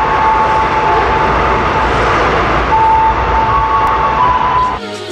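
Electric train passing close by: a loud, steady rumble of wheels on rails with several high steady tones that shift in pitch. Near the end it cuts off abruptly and music starts.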